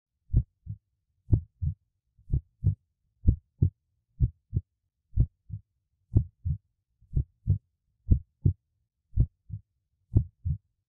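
Heartbeat sound effect: a steady lub-dub, each beat a pair of short low thumps, about one beat a second.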